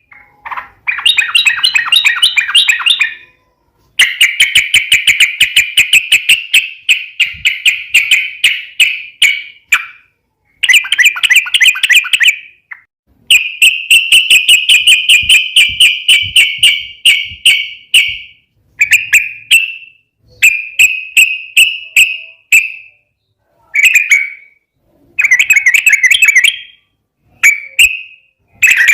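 Yellow-vented bulbul (trucukan) singing a loud, fast chattering song of rapidly repeated notes. The first half has phrases lasting several seconds, and the second half has shorter bursts of about a second with brief gaps between them.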